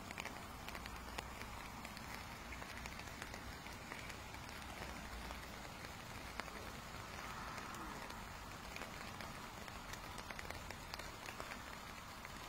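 Steady rain falling on a lake and its bank: an even hiss with many small drop ticks.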